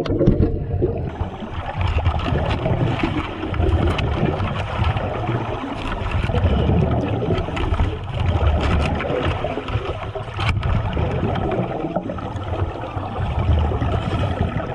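Water sloshing and gurgling in uneven swells, with one sharp knock about ten seconds in.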